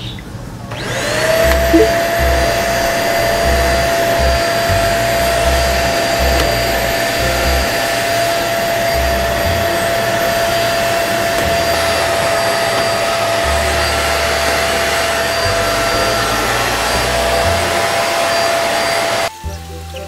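Deerma DX700 stick vacuum cleaner switched on, its motor spinning up with a rising whine about a second in, then running steadily with a high whine over rushing air before cutting off suddenly near the end.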